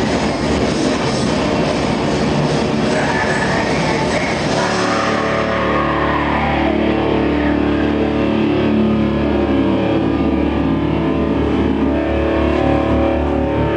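Industrial metal band playing loud live: a dense, noisy wall of distorted sound that gives way about four to five seconds in to held, distorted electric guitar notes over a low drone.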